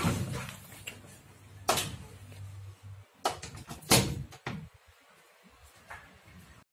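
A backpack is pulled out of a metal storage locker with a few knocks against the compartment. About four seconds in, the locker's metal door is pushed shut with a sharp bang, the loudest sound. A low hum runs under the first few seconds.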